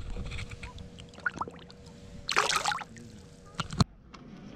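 Water splashing briefly in a short burst about two and a half seconds in, among scattered knocks and clicks from handling in a fishing boat, over a faint steady hum.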